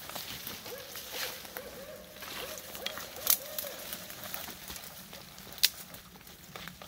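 Rustling leaves and branches and footsteps on the forest floor as people push through dense undergrowth, with sharp twig snaps, the loudest about three seconds in and again near six seconds. A faint run of short repeated low tones sounds in the first half.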